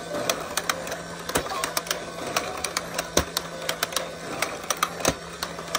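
Toy whack-a-mole game running, with a steady low hum and quick plastic clicking as its moles pop up and drop back. A plastic hammer knocks down on the moles three times, about two seconds apart.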